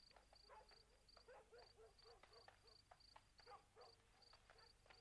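Near silence with a cricket chirping faintly and evenly, about three chirps a second.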